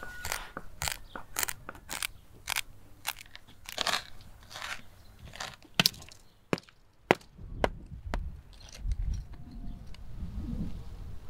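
Coarse salt crunching in a series of short strokes as gloved hands knead it in a bowl. Then a few sharp knocks of a hammer cracking a baked salt crust. Near the end, low rumbling wind on the microphone.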